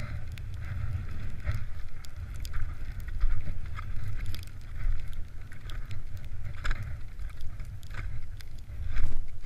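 Fischer skis scraping and chattering over crusty snow during a descent, with frequent short clicks and scrapes, louder around two-thirds of the way through and near the end. A steady low rumble of wind on the camera microphone runs underneath.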